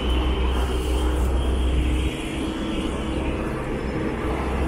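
Steady city road-traffic noise beside an elevated expressway: a continuous rumble of passing vehicles with a faint hum. The deepest part of the rumble drops away about two seconds in.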